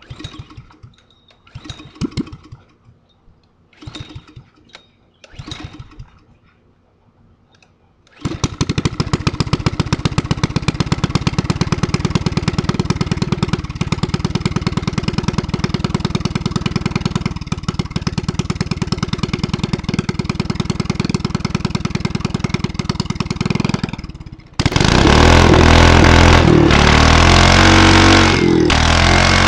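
Small Honda go-kart engine: after a few short separate noises it catches about eight seconds in and runs steadily with an even, fast beat, then about twenty-four seconds in the throttle is opened and it runs much louder.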